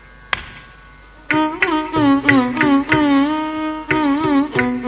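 Carnatic violin playing a melodic phrase with sliding, wavering ornaments in raga Hamsadhwani over a faint tanpura drone. The violin comes in about a second in, after a single sharp stroke.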